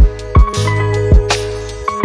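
Background music with a steady beat: a deep kick drum and sharp snare or clap hits over sustained bass and chords.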